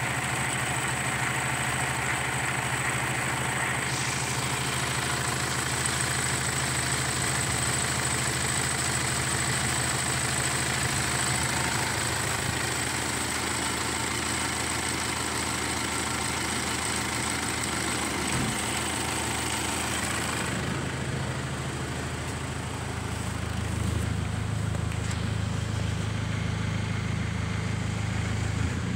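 2007 Mitsubishi Triton's 3.2-litre four-cylinder turbo diesel idling steadily with the bonnet open. About two-thirds of the way through the sound turns duller, heard from inside the cab.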